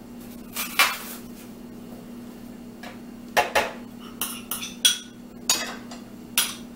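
Metal spoon scraping and tapping against a small glass bowl, knocking chopped green onions out into a larger glass bowl. It makes sharp clinks, a couple near the start and then a quicker run of them from about three seconds in, over a faint steady hum.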